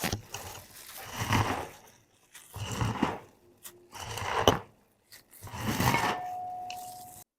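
Four rustling, scraping strokes about a second and a half apart, each swelling and fading. A faint steady ring sounds under the last one, which cuts off suddenly.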